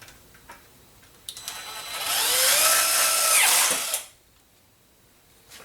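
Cordless impact driver running in one burst of about two and a half seconds, driving a screw into lumber without a pilot hole. The whine builds, wavers in pitch and then cuts off abruptly; a few small clicks come before it.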